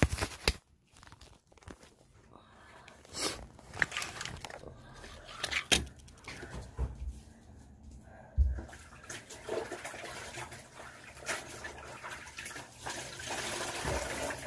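Water splashing during household cleaning, with scattered knocks and clatters.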